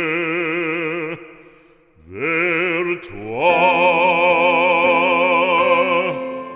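Background music: an operatic voice singing long held notes with wide vibrato. The voice fades out about a second in, then a new phrase starts, rises and settles into a long held note that stops near the end.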